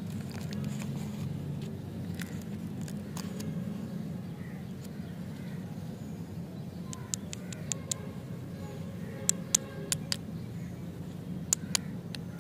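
Paper wrapper being peeled from a candy bar with faint crinkling, then a run of sharp clicks and taps as candy lollipops on sticks are handled, over a steady low background hum.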